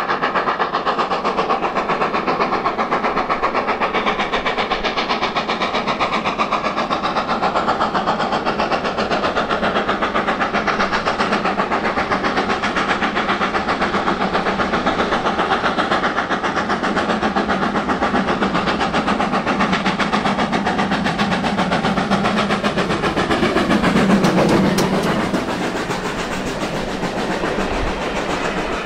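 Steam locomotive 7828 'Odney Manor', a two-cylinder 'Manor' class 4-6-0, approaching with a train, its rapid exhaust beats growing louder. It is loudest as the engine passes, about 24 seconds in, when the pitch falls. The coaches then roll by with a lighter clatter of wheels on rail joints.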